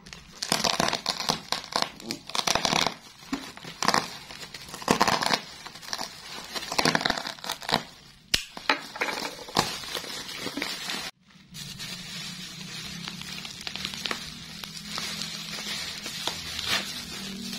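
Plastic courier mailer and packing tape crinkling and tearing in loud, irregular bursts as a parcel is opened by hand. After a short break about eleven seconds in, there is softer, steadier rustling of bubble wrap being unwrapped.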